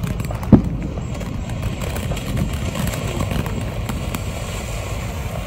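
Ground fountain firework spraying sparks, over a steady low rumble, with one sharp pop about half a second in.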